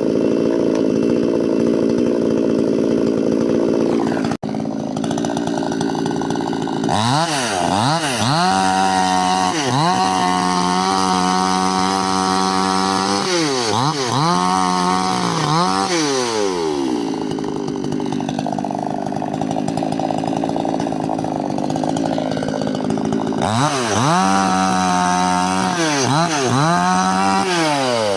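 Two-stroke chainsaw running hard, its engine revved up and down again and again, with a steadier lower-pitched stretch in the middle. The sound cuts out for an instant about four seconds in.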